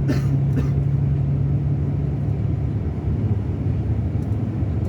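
Scania K360 coach's diesel engine running steadily, a low drone with a strong steady hum that eases off a little about two seconds in. Two short higher sounds come in the first second.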